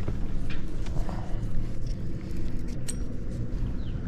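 Boat motor running steadily at low speed, an even hum.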